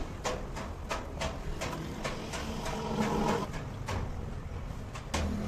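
A series of irregular clicks and light knocks over a steady low hum, with a short pitched sound near the middle.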